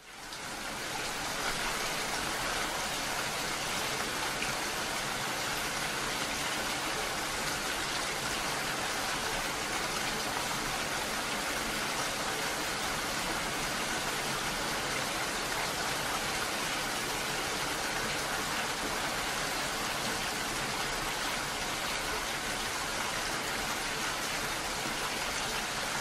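Heavy rain falling steadily, an even hiss that fades in over the first second.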